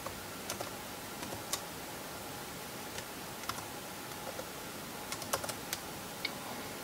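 Typing on a Lenovo C330 Chromebook's laptop keyboard: sharp key clicks in short, irregular runs over a steady background hiss.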